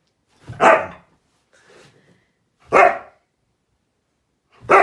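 Siberian husky barking: three short, loud barks about two seconds apart.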